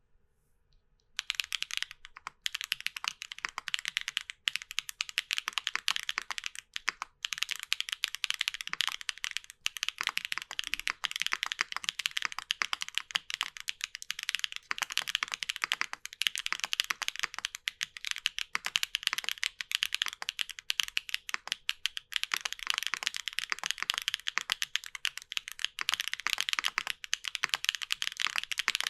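Steady fast typing on a Tess65 mechanical keyboard with an aluminium plate and Gateron Banana Smoothie heavy tactile switches, full-POM, lubed, with a dual-stage spring. The keystrokes are dense, crisp clacks with little low end, and start about a second in.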